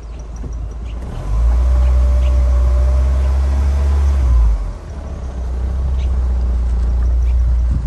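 Car driving slowly on a dirt track: a low engine rumble with a faint rising tone, dropping off briefly about halfway through and then building again.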